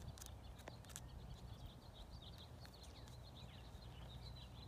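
Faint outdoor ambience: small birds chirping over and over in the distance above a low steady rumble. Two or three soft clicks come in the first second as the halter's noseband buckle is handled.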